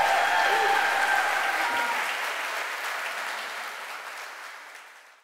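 Concert audience applauding and cheering after a live guitar song, with a few whistles and whoops in the first second or so. The applause fades out steadily toward the end.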